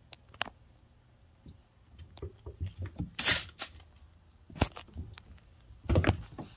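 Two kittens play-fighting on a wooden floor: scattered taps and scrabbles of paws, a longer scuffle about three seconds in, and a few thumps near the end.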